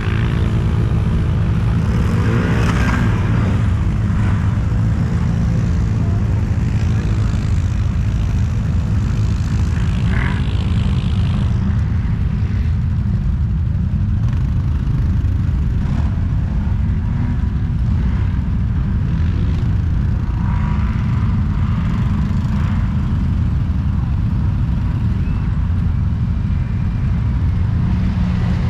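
ATV engine idling steadily close up, with faint rises from other ATV engines now and then.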